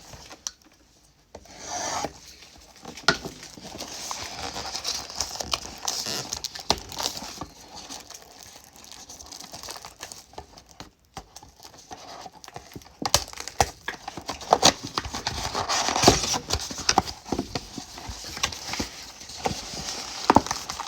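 A cardboard trading-card mega box being opened and emptied: irregular rubbing and scraping of cardboard with crinkling of the foil-wrapped card packs, busier in the second half.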